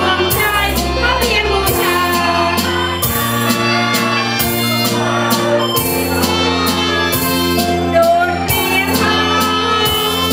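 Music: a song with singing over a steady beat and held bass notes.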